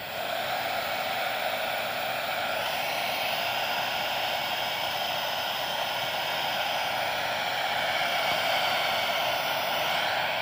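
Hair dryer coming on and then running steadily with an even rushing hiss, blowing hot air onto a short path distiller's pipe to warm viscous material through it.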